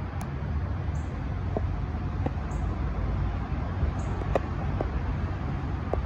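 Steady low outdoor rumble, with a faint short high chirp repeating about every second and a half and a few soft ticks.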